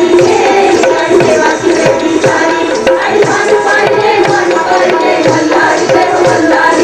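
A chorus of women singing a Marathi Gondhal folk song, accompanied by tabla and dholak playing a steady rhythm.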